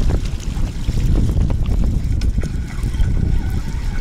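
Wind buffeting the microphone in a steady low rumble, with scattered small clicks from hands working a spinning reel.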